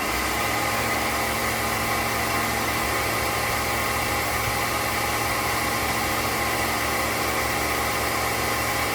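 Pressure washer running at a steady pitch and level, its motor hum mixed with the hiss of the spray; it cuts in sharply at the very start.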